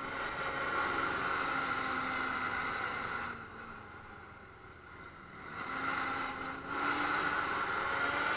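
Road and wind noise of a vehicle moving through rain on wet streets. It is louder for the first few seconds, eases off in the middle, then swells again, with a faint engine tone rising near the end.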